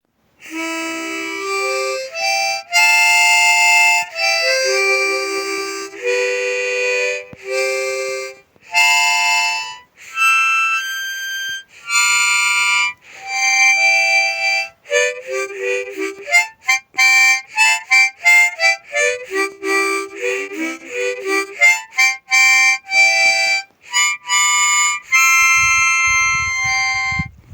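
A harmonica playing a tune in short phrases with brief breaks between them, with a faster run of quickly changing notes in the middle. A low rumble joins in near the end.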